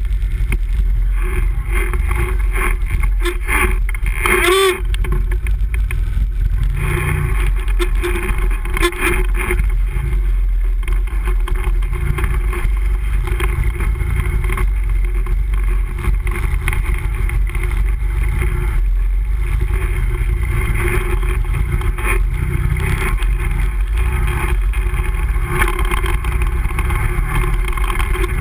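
Can-Am Renegade ATV engine running steadily while riding along a trail, heard close up from a camera mounted on the machine.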